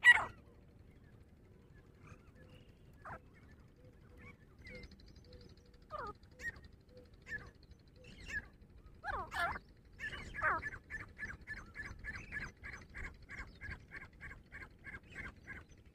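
Grey francolins calling: a loud call at the start, then scattered short calls, and from about ten seconds in a fast run of repeated notes, about three a second, that stops near the end.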